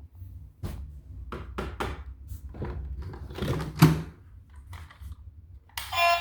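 A string of irregular knocks and clicks from objects being handled, the loudest about two-thirds of the way through. Music with synthesized singing starts near the end.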